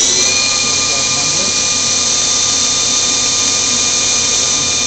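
Cincinnati-Milacron Arrow 1000 CNC vertical machining centre spindle running unloaded at about 5,600 RPM (4,500 commanded with the spindle override at 125%). Its rising whine levels off just as it begins, then holds as a steady high whine of several pitches over a hiss.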